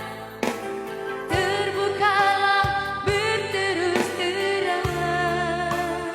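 A solo singer's voice singing held notes with vibrato over backing music.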